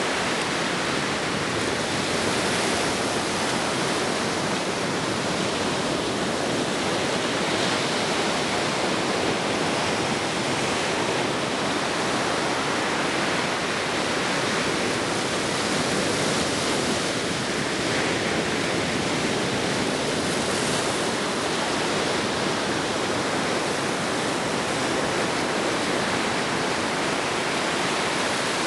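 Ocean surf making a steady, even rushing noise, with no single wave standing out.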